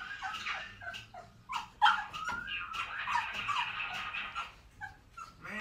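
A puppy whining and yipping: high-pitched whines broken by short, sharp yelps, with a longer whine through the middle.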